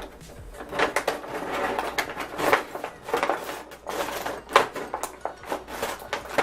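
Plastic toy packaging crinkling and crackling in irregular bursts, with sharp clicks, as the pieces are pulled out of it.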